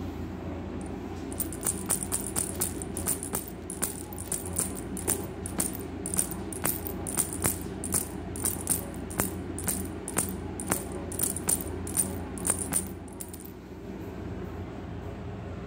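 Electric flopping-fish cat toy wagging its tail against a wooden floor: a steady run of sharp taps, about two a second, that stops about 13 seconds in.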